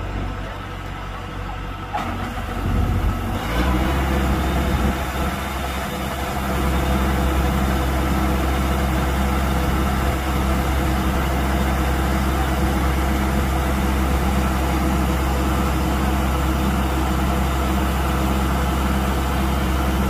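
Kubota combine harvester's diesel engine running; about three and a half seconds in it grows louder and heavier, then runs steadily.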